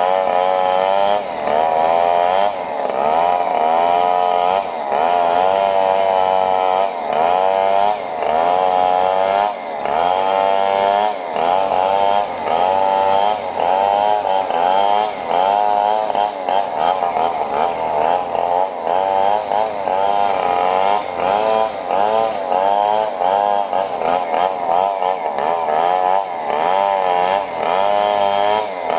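Two small engines revving up and down over and over, the pitch rising and falling about once a second.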